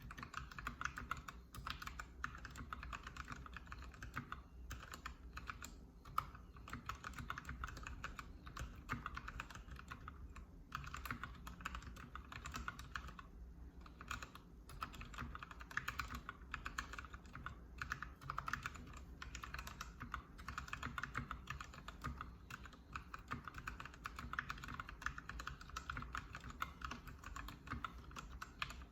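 Continuous typing on a Keychron K6 mechanical keyboard with hand-lubed Gateron Brown switches: a dense run of keystroke clicks with a couple of short pauses.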